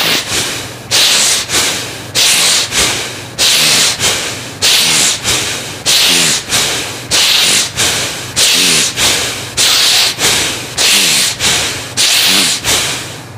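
Bhastrika (bellows breath) pranayama: a man drawing forceful breaths in and out through the nose in a steady series of sharp, hissing breaths, about one a second.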